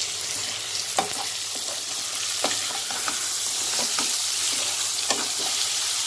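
Onions and sliced tomatoes sizzling in hot oil and ghee in a pan while being stirred and sautéed, the spatula scraping against the pan about once a second over a steady sizzle.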